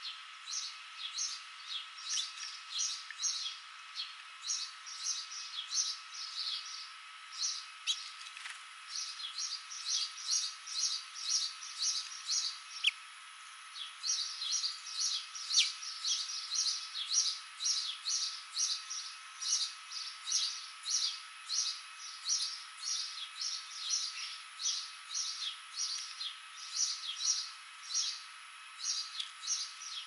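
A small songbird chirping over and over: short, high chirps about two a second, with a brief pause about halfway, over a faint steady high tone.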